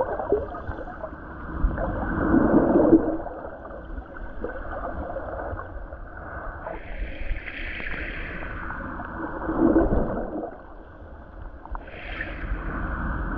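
Water heard from below the surface: a muffled sloshing and gurgling that swells and fades in slow waves, loudest about two to three seconds in and again near ten seconds, with a brief higher hiss in between.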